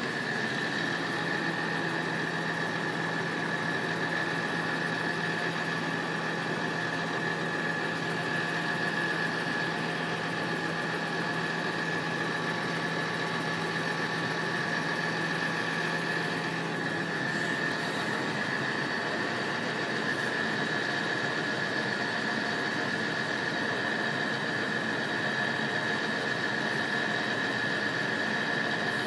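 Railway level crossing audible warning alarm sounding continuously as a steady high-pitched tone while the barriers are down and the red lights flash. A low engine hum from a vehicle idling at the barrier sits under it and stops about two-thirds of the way through.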